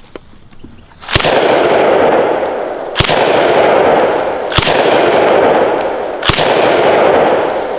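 DDI LA-K12 Puma semi-automatic 12-gauge bullpup shotgun fired four times, about one and a half to two seconds apart, the action cycling a fresh shell each time. Each shot is followed by a long, loud noisy tail that fills the gap to the next.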